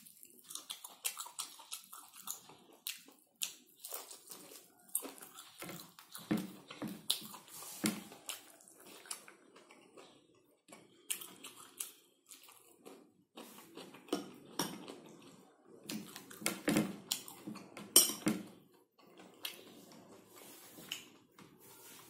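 Close-miked wet chewing and lip-smacking of pork eaten by hand, an irregular run of clicks and smacks, the loudest about eighteen seconds in.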